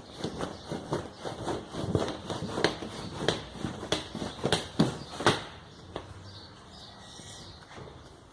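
A run of sharp knocks and clicks, roughly two a second, dying away after about five seconds into faint rustling.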